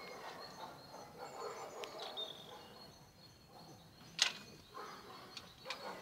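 Quiet outdoor ambience with faint bird calls, broken by one sharp click about four seconds in and a smaller one near the end.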